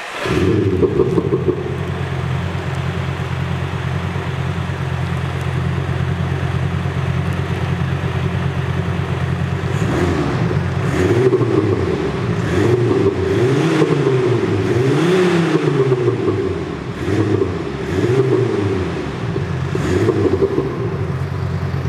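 Mercedes A200d diesel with a CET Automotive active sound exhaust speaker at full volume: a steady synthetic engine rumble at idle, then revved repeatedly from about ten seconds in, the pitch rising and falling with each blip. The sound-level meter reads about 73 dB.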